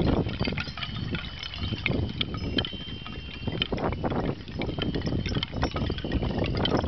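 Small metal bells hanging among painted wooden wish plaques tinkling, with the plaques clacking against one another as they swing, over a steady low rumble. A few bell notes ring out clearly near the middle.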